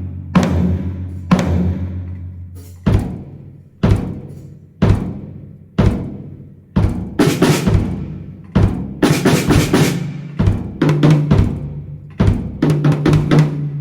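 A drum kit played slowly: single heavy strikes about once a second, each ringing low and dying away, then quicker hits with cymbal wash about halfway through.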